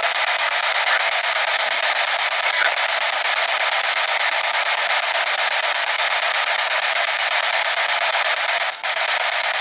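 P-SB7 spirit box sweeping rapidly through radio stations through its small speaker, giving a steady hiss of radio static. The static drops out briefly near the end.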